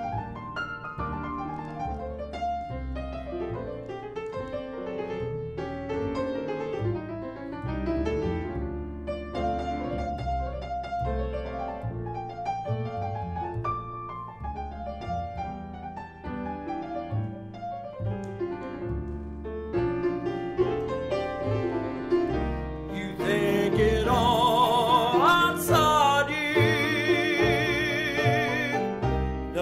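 Grand piano solo in a slow jazz ballad, with an upright double bass playing a low line beneath it. About 23 seconds in, a man's singing voice comes back in over them, louder, on held notes with a wide vibrato.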